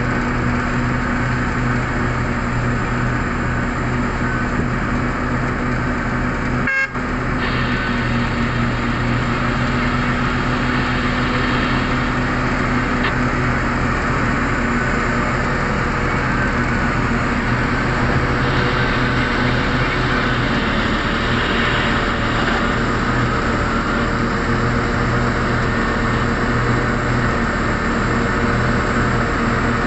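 Heavy diesel engines of a large mining excavator and a CAT 777D haul truck running steadily under load, a continuous deep hum with a steady drone. The sound drops out for an instant about seven seconds in.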